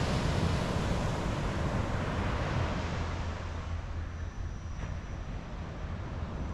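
Ocean surf washing onto the beach, with wind rumbling on the microphone; the surf's hiss eases about halfway through.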